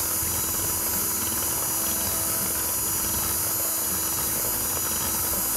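Cordless drill running steadily, spinning a metal mixing shaft in a glass bowl of vinaigrette to emulsify it: a constant motor hum and whir with no change in speed.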